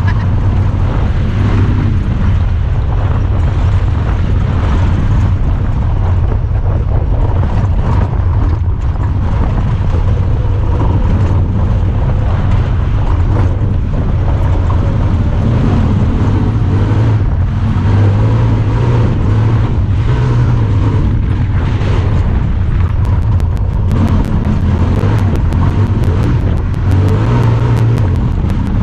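Honda Talon 1000R side-by-side's 999 cc parallel-twin engine running while the machine is driven, under a steady heavy low rumble. From about 23 seconds in, a rapid faint ticking sits high above it.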